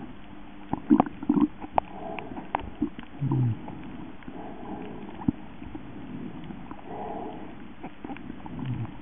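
Muffled underwater sound of moving water with gurgles, and a cluster of sharp knocks in the first few seconds, then a short low gurgle.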